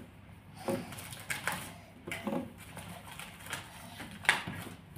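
Scattered light taps, clicks and scrapes of hands and a small plastic mould working crumbly play clay on a hard tabletop, with one sharper tap a little after four seconds in.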